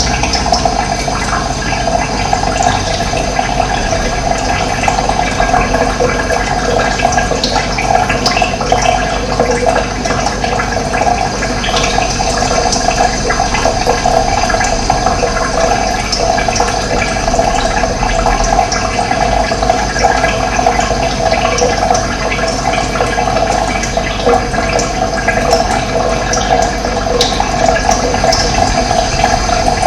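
Running water: a steady rushing flow with no break.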